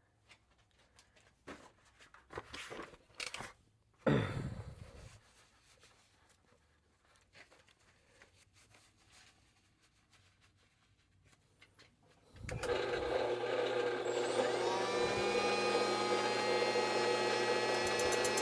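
Tool handling clicks and a brief clatter, then power-tool motors switch on about two-thirds of the way through and run steadily with a whine, one pitch rising as a motor spins up, as the drill press spins the shaft for grinding.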